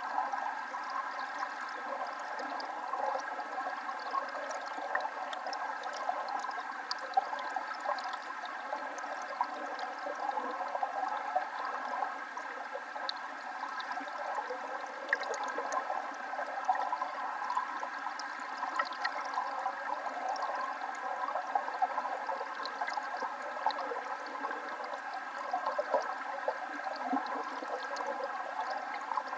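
Waterfall: water falling and splashing steadily, an even rush with no deep rumble.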